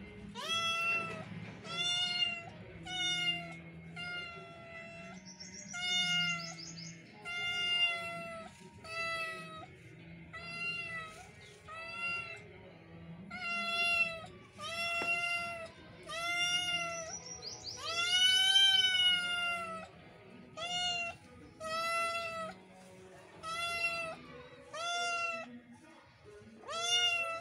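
Tabby kitten meowing over and over, calling to a person, about one high-pitched meow a second. One longer, louder meow comes about two-thirds of the way through.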